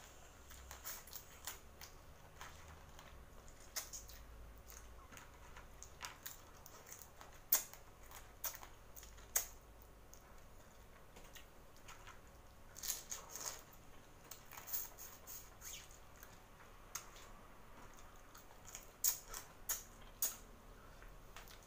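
Close-miked sounds of eating boiled seafood by hand: irregular wet mouth clicks, lip smacks and chewing as shrimp and crab are sucked and eaten. The clicks bunch up about halfway through and again near the end.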